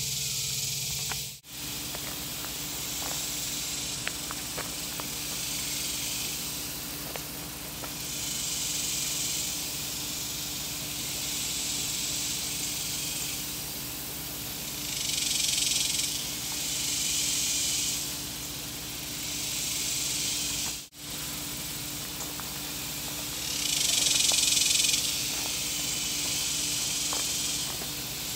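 A high outdoor hiss that swells louder in bouts of a few seconds and falls back, over a steady low hum, dropping out briefly twice.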